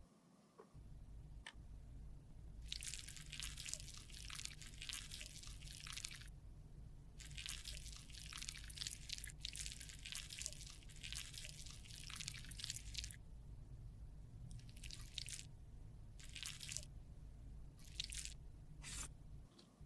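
Sticky, wet squishing and crackling of lipstick and petroleum jelly being pressed and worked together. It comes in two long stretches of several seconds, then a few short bursts near the end.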